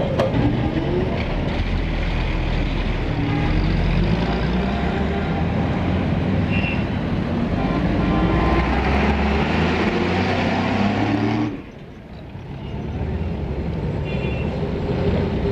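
Busy city street traffic: motor vehicle engines running and passing, with engine notes gliding up and down in pitch. About three quarters of the way through the sound drops away suddenly, then builds back up to the same traffic.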